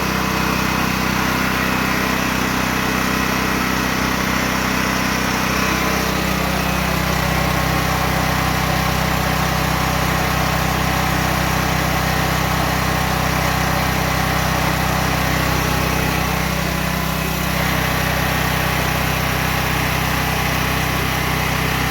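Portable generator's small engine running steadily on propane, fed through a repaired US Carburetion Motor Snorkel LP conversion: it now runs after failing to start.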